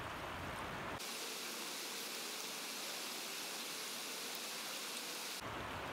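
Steady, featureless outdoor background hiss with no distinct events; about a second in the low rumble drops away, leaving a thinner, brighter hiss until near the end.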